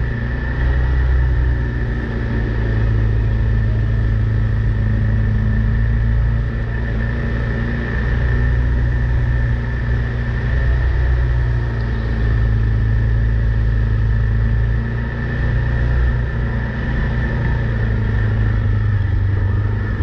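Side-by-side UTV's engine running steadily as it drives along a muddy trail, a low drone with a steady high whine over it.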